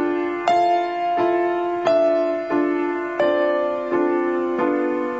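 Slow instrumental piano music: single notes or chords struck about every two-thirds of a second, each ringing and fading before the next.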